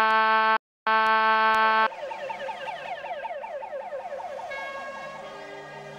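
Fire station alarm buzzer sounding in two long, steady blasts, then a fire engine siren in a rapid yelp that fades as music comes in near the end.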